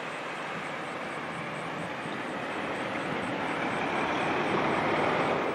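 Steady rushing road-traffic noise with no siren, growing louder toward the end as a vehicle draws near.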